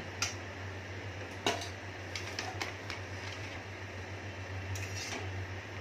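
A few light clinks of a metal spoon against a steel kadai as cooked pasta is scooped out, over a steady low room hum.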